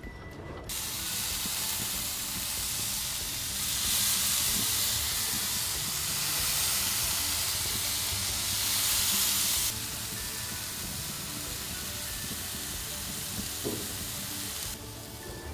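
Bacon-wrapped duck poppers sizzling on a grill, a steady hiss of fat frying. It starts suddenly just under a second in, is loudest through the middle, and drops back for the last few seconds.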